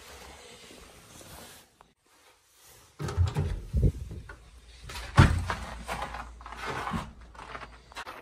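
Faint rustling, then from about three seconds in a run of knocks and clicks from a lever door handle and latch as a door is opened and shut, the loudest knock about five seconds in.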